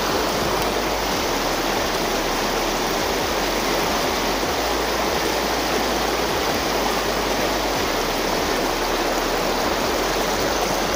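Small mountain trout stream rushing over rocks and little cascades: a steady, even wash of water.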